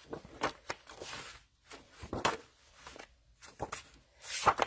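Sheets of patterned designer paper being shuffled and laid down on a paper trimmer: a series of short paper rustles, swishes and light taps.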